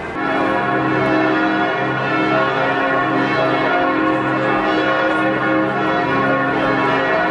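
Church bells ringing together in a full peal, a dense, steady mass of overlapping ringing tones that sets in abruptly and keeps going.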